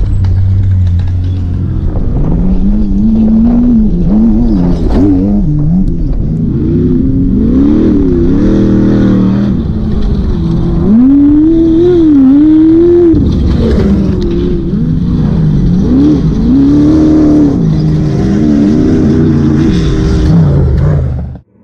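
Off-road racing buggy engines revving hard through a dirt corner, the pitch rising and falling again and again with throttle and gear changes as cars pass one after another. The sound cuts off abruptly near the end.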